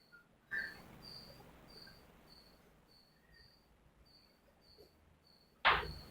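A cricket chirping steadily, about two high chirps a second. There is a soft knock about half a second in and a loud, sharp thump near the end.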